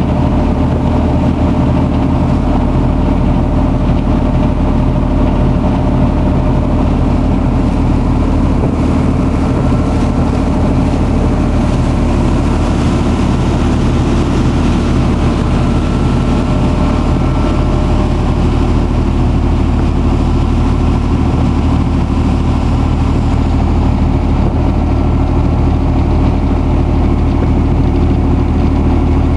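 Lobster boat's engine running steadily at cruising speed, with the rush of water churned up in its wake. A constant, unchanging drone.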